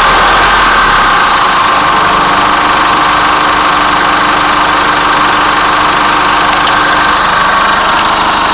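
Chevrolet S10 2.8 turbo-diesel four-cylinder engine idling, heard close up with the hood open. A faint steady tone comes in about two seconds in and fades out about seven seconds in.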